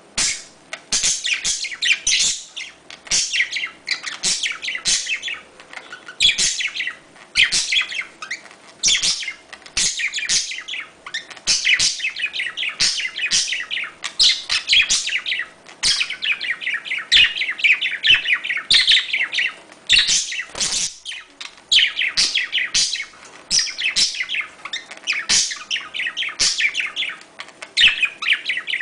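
Budgerigars chattering and warbling in dense, rapid runs of high chirps with brief pauses: the courtship chatter used as a mating sound to bring budgies into breeding condition.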